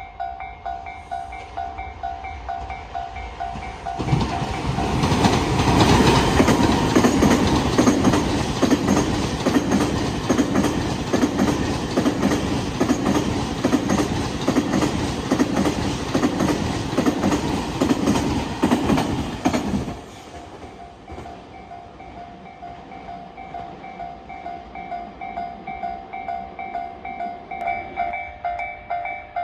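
A level-crossing warning bell rings in a steady repeating pulse. About four seconds in, a freight train passes for some sixteen seconds, its wheels clattering hard over the rail joints. After the train has gone, the crossing bell keeps ringing.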